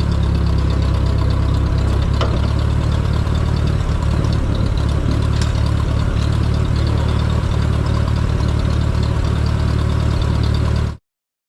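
Engine of a 1960s Case Construction King 530 idling steadily, with oil pressure now registering on its newly fitted gauge. The sound cuts off abruptly near the end.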